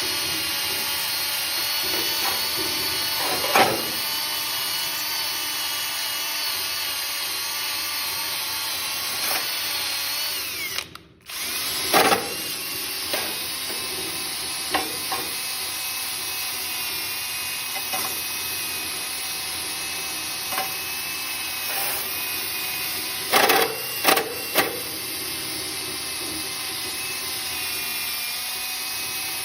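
Cordless drill running a wire wheel, scrubbing old gasket residue and carbon off the engine's gasket surface; a steady motor whine with scraping. It stops for a moment about eleven seconds in, then starts again, with a few sharp knocks of the wheel against the metal.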